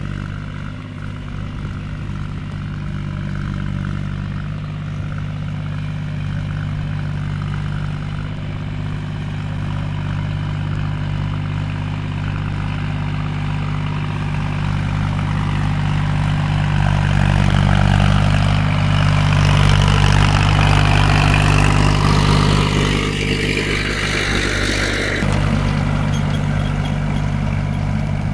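Farm tractor's diesel engine running steadily under load while plowing, growing louder as it approaches. A harsher noise rides over the engine where it comes closest, and the sound drops back suddenly a few seconds before the end.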